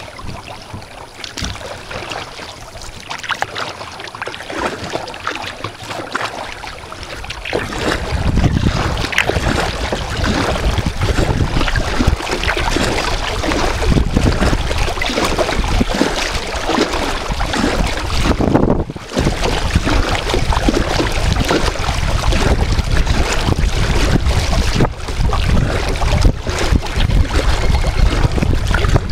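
Water lapping and splashing around a moving kayak's hull, with wind buffeting the microphone that becomes much heavier about eight seconds in.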